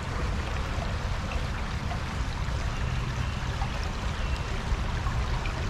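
Shallow creek water running over rocks in a steady rush.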